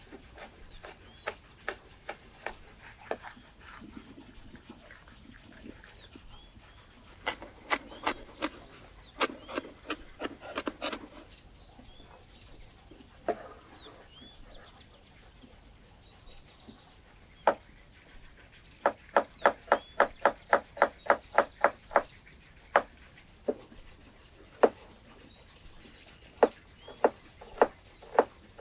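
Large chef's knife chopping vegetables (green peppers, then onion) on a wooden cutting board: runs of sharp knocks, with a quick even run of about four chops a second past the middle and single cuts near the end. Birds chirp faintly in the background.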